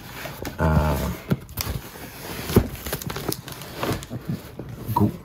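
A large cardboard shipping box being turned over and handled, with irregular scraping, rustling and small knocks of cardboard and packing tape. A man makes a brief wordless vocal sound about a second in.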